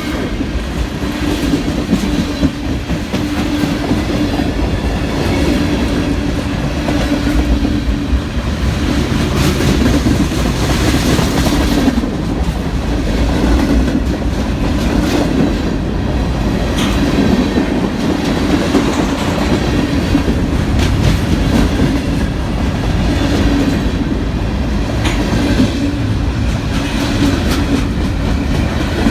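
Train cars rolling past, a steady loud rumble with the wheels clicking over the rail joints.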